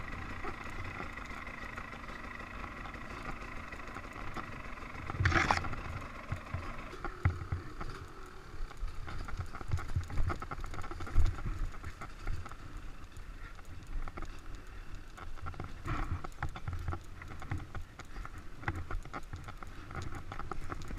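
Dirt bike engine running steadily at low trail speed, with frequent knocks and rattles from the bike riding over roots and rough ground. A sudden loud noise comes about five seconds in.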